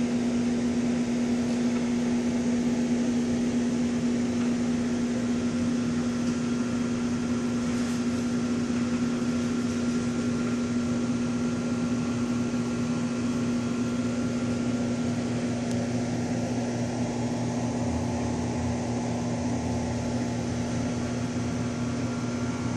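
Steady electric hum of a reef aquarium's pumps running: one constant low tone over a soft even hiss.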